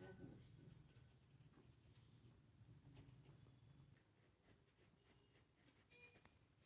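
Faint scratching of a drawing tool on paper, in short repeated strokes.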